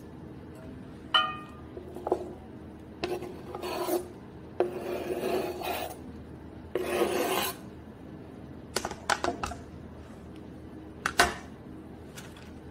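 A knife blade scrapes chopped carrots off a cutting board into a cast iron pot: several rough scrapes, with carrot pieces tumbling into the pot. There is a ringing metallic clink about a second in, a run of small clicks later on, and a sharp knock near the end.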